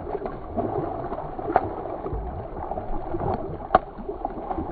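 A hooked black mullet thrashing and splashing at the water's surface, with sharp splashes about one and a half seconds in and again near four seconds in.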